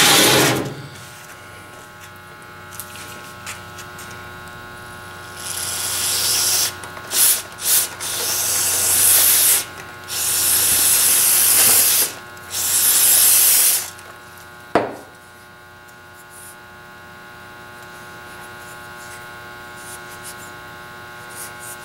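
Aerosol carb cleaner sprayed in about six hissing bursts over some eight seconds, cleaning out a gunked-up Coleman stove fuel valve. A steady electrical hum sits underneath, and a single click comes about fifteen seconds in.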